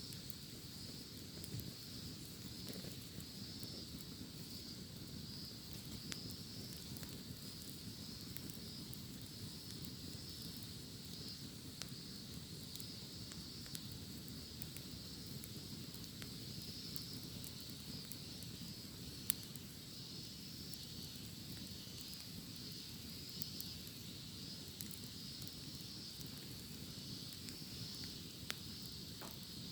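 Cicadas calling in a steady, high, continuous buzz over a wood fire crackling, with scattered sharp pops. The loudest pop comes about two-thirds of the way through, and another comes near the end.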